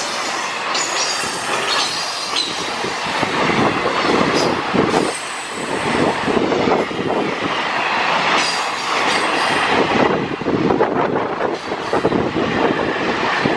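Freight train hauled by an electric locomotive passing close by: a steady loud rolling noise of wagon wheels on the rails, broken by many short clacks over the rail joints.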